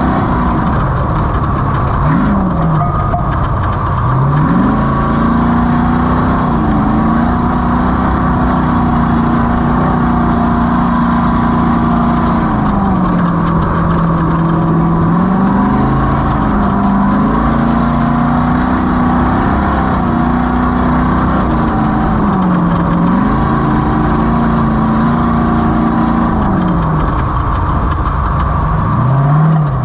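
Off-road race vehicle's engine running hard, its note holding steady for long stretches, then dropping and climbing back several times as the throttle is lifted and reapplied.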